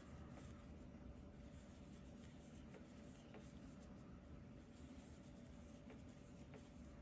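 Near silence: a faint steady hum with soft rustling and a few light ticks from a crochet hook working yarn.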